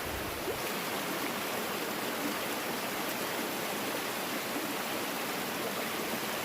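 Creek water flowing over small falls, a steady, even rushing noise.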